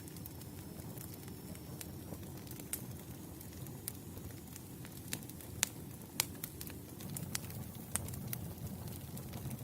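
Campfire burning: irregular sharp crackles and pops of burning wood over a steady low rumble of flames, with a few louder pops a little past halfway.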